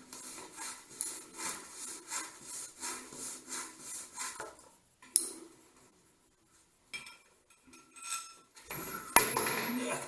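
Rhythmic rubbing strokes by hand, a little over two a second, for the first half. Then a sharp click, a pause, and a few scrapes with squeaky tones and a second sharp click near the end.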